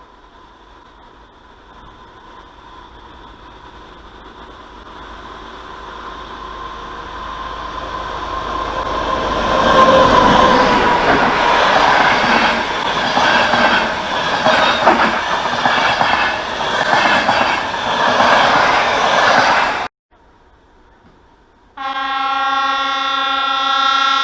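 A train approaching and growing steadily louder over about ten seconds, then passing close with its wheels clattering over the rail joints until the sound cuts off abruptly. After a brief quiet, a train horn sounds one long, steady blast near the end.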